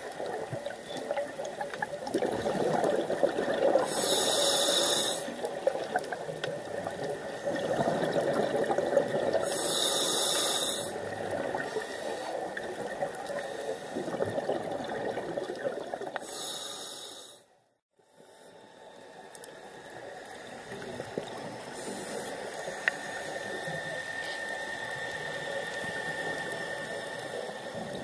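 Underwater sound of a scuba diver breathing through a regulator. There are three breaths about six seconds apart, each a rush of bubbles ending in a short high hiss. After a brief dropout about two-thirds in, a steadier, quieter underwater wash follows.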